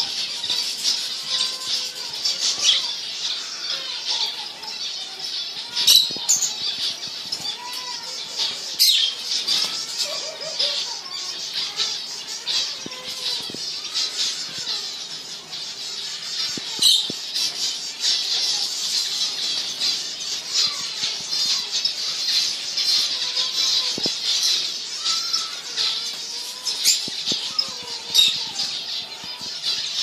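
A flock of small finches in an aviary chirping and twittering together, a dense high chorus of overlapping calls with a few sharper, louder notes standing out.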